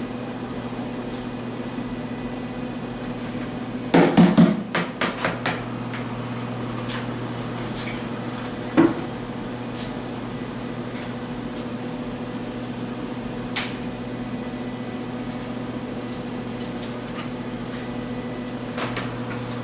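Plastic buckets being handled and set down: a quick run of knocks and clatter about four seconds in, a single sharp knock near nine seconds, and a few lighter clicks and knocks later, over a steady low hum.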